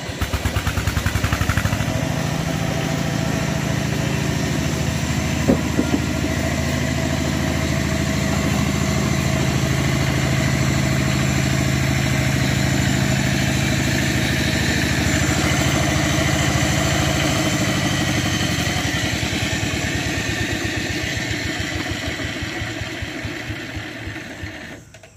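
Two-wheel hand tractor's single-cylinder diesel engine running steadily with a fast, even pulse, then dying away near the end.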